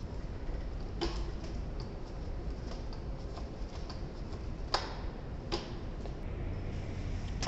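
A few scattered sharp clicks and ticks, the loudest just before five seconds in, over a steady low rumble.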